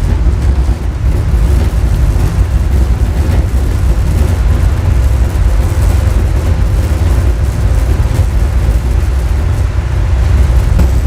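A fairground ride's PA system, with 15-inch Eminence speakers, playing loud, bass-heavy sound during a sound check and adjustment, the deep bass dominating.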